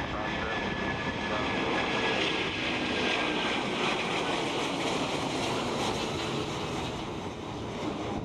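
Airbus A330-300's Rolls-Royce Trent 700 turbofans at takeoff power as the airliner climbs out: a steady jet roar with a faint high whine that drifts slightly lower in pitch.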